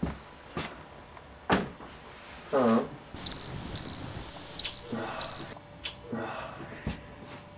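Four short, high-pitched chirps spaced about half a second to a second apart, among a few scattered clicks and knocks. Just before the chirps there is a brief, lower pitched sound that bends in pitch.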